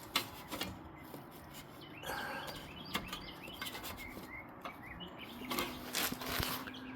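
Faint handling noises, small clicks and a brief scrape or rub, with a few faint bird chirps in the middle.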